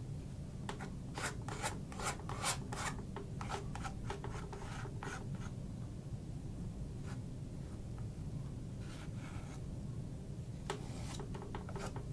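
Paintbrush scrubbing oil paint onto a canvas in short scratchy strokes, a quick run of them in the first half and more near the end, over a steady low room hum.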